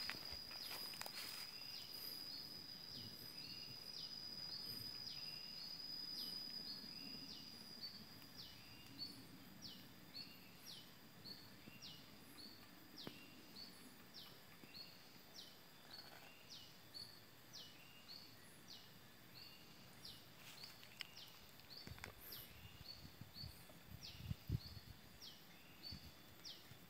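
Faint outdoor ambience with an unseen animal calling high and steady for the first several seconds, then a short high call repeating about every two-thirds of a second. A few soft knocks or rustles come near the end.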